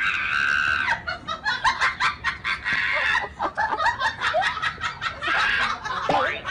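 Siberian husky vocalizing: a held cry, then a rapid string of short whines and yowls that keep changing pitch, over a patter of clicks.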